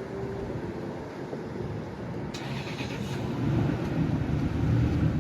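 Low, steady rumble of a vehicle engine, growing louder in the second half, with a short hiss a little past halfway.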